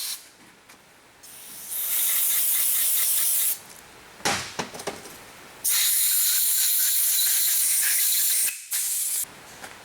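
Two long, steady blasts of compressed air from a blow gun, about two and three seconds each, clearing metal chips from a freshly dressed, threaded mount hole, with a short clatter of a tool or part between them.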